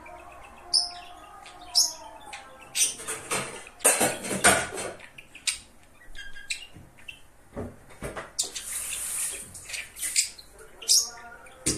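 Budgerigar chattering: a quick, irregular run of short chirps, clicks and scratchy warbles, busiest about four seconds in.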